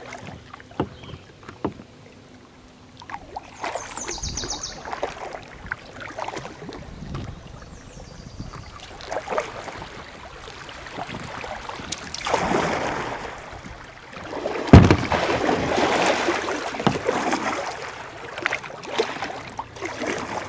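Kayak paddling: paddle blades dipping and splashing water, with drips and scattered knocks. Heavier splashing comes about 12 seconds in, and again after a sharp knock about 15 seconds in, the loudest sound.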